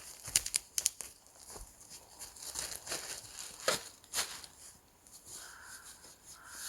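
Plastic bag being handled, rustling and crinkling with a few sharp crackles.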